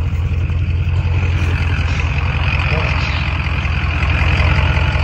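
Mud truck's engine idling steadily, a low even running sound throughout.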